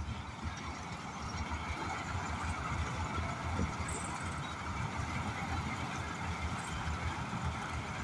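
Combine harvester at work, its engine and threshing machinery running steadily under load as it cuts the crop: a constant low drone with a broad mechanical hiss over it.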